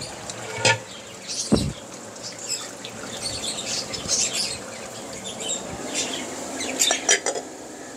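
Caged budgerigars chattering and chirping in quick, high twitters throughout. A few knocks of a plastic bowl and utensils, about a second in and again near the end, are the loudest sounds.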